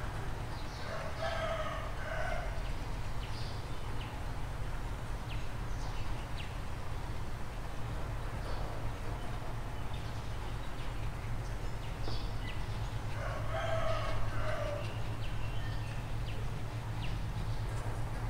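A rooster crowing twice, once about a second in and again about thirteen seconds in, over a steady low hum.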